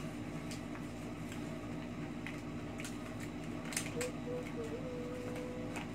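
Paper food wrappers being handled, with a few short crackles and rustles over a steady room hum; a faint held tone comes in about two-thirds of the way through.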